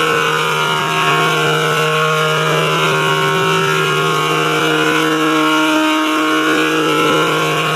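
Sustained electronic drone: a steady low tone held under several higher tones that slowly swell and fade.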